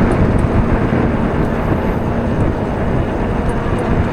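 Steady wind rush on the microphone mixed with road and tyre noise from a moving e-bike.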